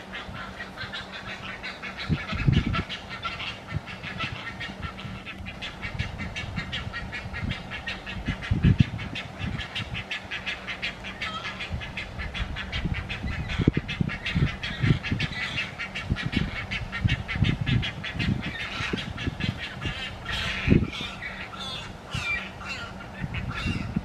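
Great egret chicks in the nest giving a rapid, continuous ticking chatter of begging calls at feeding time, with a few louder, harsher calls near the end. Occasional low thumps sound underneath.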